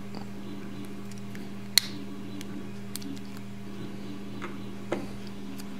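A few small clicks of metal as a brass compression lock nut is worked by hand onto the threaded end of a Gaggia Classic steam valve, the sharpest a little under two seconds in and another near the end, over a steady low hum.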